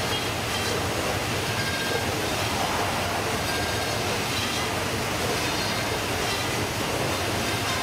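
Steady mechanical din of a Baader fish-processing machine and its plastic conveyor running as fish are fed through, with a continuous low hum underneath.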